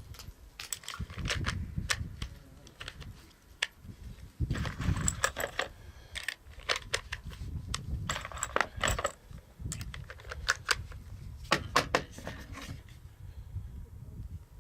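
Irregular small clicks and metallic clinks of gear being handled, over low wind rumble on the microphone.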